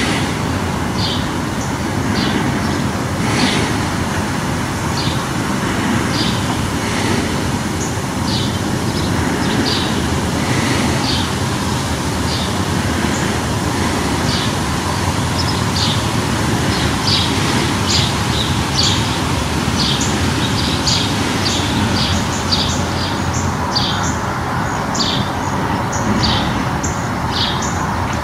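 Birds chirping in short, repeated high calls that come thicker in the second half, over a steady low rumble.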